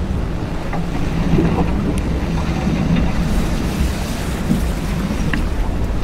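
Seawater churning and rushing around a boat hull as it sinks, with wind noise on the microphone and a low steady hum underneath.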